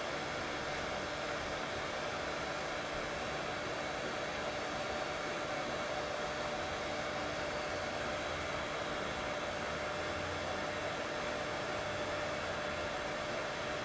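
Steady, unbroken white noise with a faint hum in it, a sleep-aid track for soothing a colicky baby.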